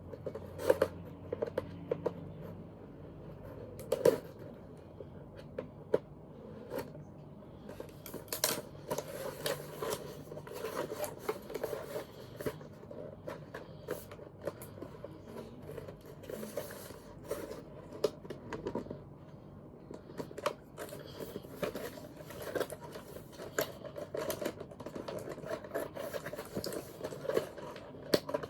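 Scissors snipping and plastic toy packaging crinkling and scraping as it is cut open: an irregular string of snips, clicks and rustles, a few of them sharper and louder.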